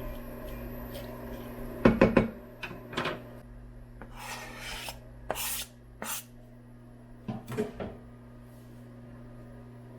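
Kitchen cookware and utensils being handled: a quick run of knocks about two seconds in, then several scrapes and clinks spaced through the rest, over a steady low hum.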